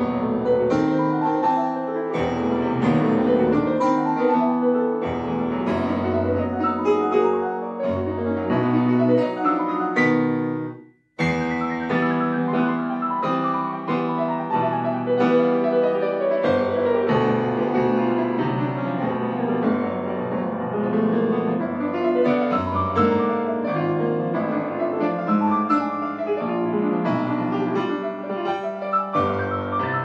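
Yamaha grand piano played solo in fast, dense classical passages. About ten seconds in the sound fades and breaks off for a moment, then the playing comes back abruptly.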